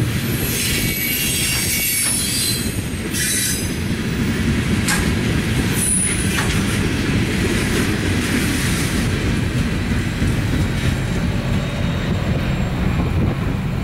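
Freight cars rolling past close by: a steady rumble of steel wheels on rail, with high-pitched wheel squeal in the first few seconds and again about six seconds in, and a few sharp clicks from the wheels over the rail joints.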